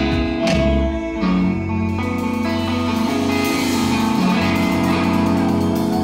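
Live rock band playing: electric guitar and bass guitar holding ringing chords, with drum hits in the first second.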